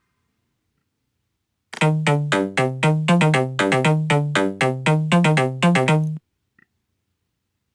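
A synthesizer riff of short, quickly repeated notes, about four or five a second. It starts about two seconds in and cuts off abruptly about six seconds in.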